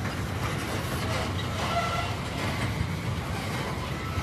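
Covered hopper cars of a slow freight train rolling past, a steady rumble of steel wheels on rail. A faint, brief squeal comes about halfway through.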